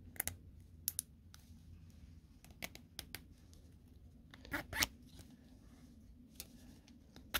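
Plastic cable ties being pulled tight around a coiled valve spring, their ratchet teeth zipping in short rasps and clicks. The longest and loudest rasp comes about four and a half seconds in.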